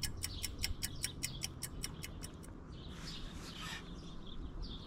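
Fishing reel clicking rapidly and evenly, about seven clicks a second, stopping about two and a half seconds in, over a faint steady low hum.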